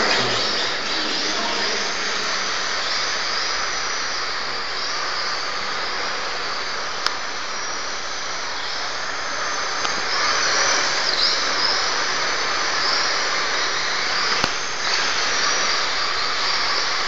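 Radio-controlled drift car running and drifting on concrete: a steady high hiss with a faint whine that rises and falls as the throttle is worked. Two sharp ticks stand out along the way.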